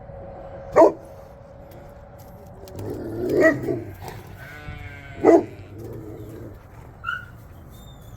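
Dog barking at birds flying overhead: sharp single barks about a second in and about five seconds in, with a longer, louder bark in between.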